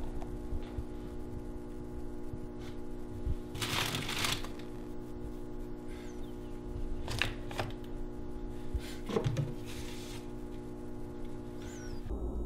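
Food packaging rustling and crinkling as things are moved about in an open refrigerator, in a few short bursts, the strongest about four seconds in, over a steady low hum.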